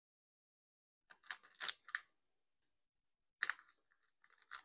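Plastic zip-top bag crinkling in three short bursts, starting about a second in, as it is squeezed and shaken to empty out diced ham.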